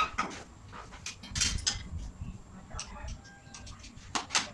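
Irregular sharp clicks and knocks, with a brief faint tone or two around the middle.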